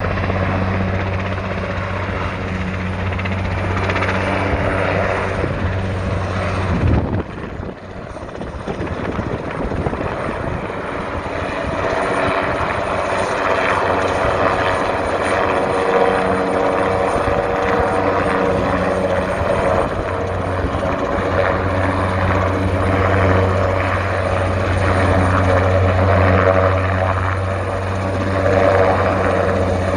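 Helicopter rotor and engine running close by: a steady, heavy beating over dense noise. It dips about seven seconds in, then builds back up.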